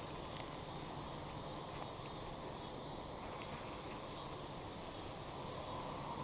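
Steady outdoor ambience on a lake: an even hiss with a faint low hum beneath it and no distinct events.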